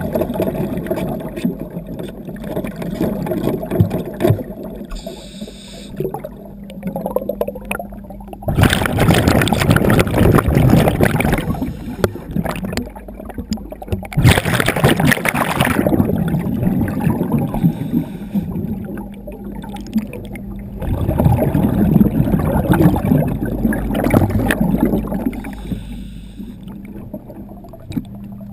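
Underwater scuba breathing: a diver's exhaled bubbles rush and gurgle in three loud bursts, each lasting a few seconds, about every six seconds, with quieter bubbling between them. A steady low hum runs underneath for the first third.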